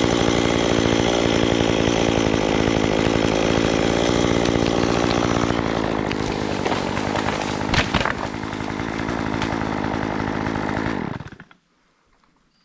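Chainsaw running steadily. About eight seconds in there is a single sharp crack, and the saw's sound stops suddenly about a second before the end.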